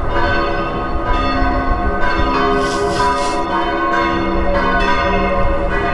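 Several church bells ringing together, fresh strikes overlapping with the ringing of earlier ones in a continuous peal.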